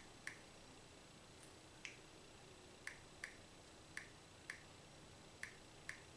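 Faint, short key clicks at an irregular pace, about nine of them, from a Wi-Fi password being typed on a Samsung Galaxy Tab E's touchscreen keyboard.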